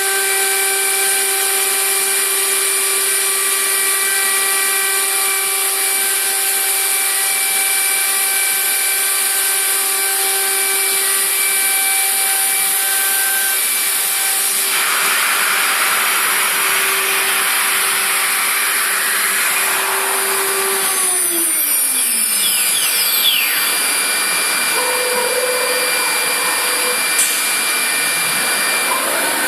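Tekcel VSR CNC router running: a steady spindle whine over a loud, constant rushing hiss of air, with rougher cutting noise added from about halfway. About two-thirds of the way in, the spindle spins down, its whine falling in pitch and dying away while the hiss carries on.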